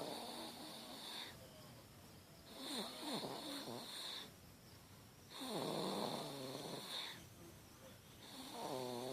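Seven-month-old baby snoring in sleep, with four snoring breaths, one about every three seconds.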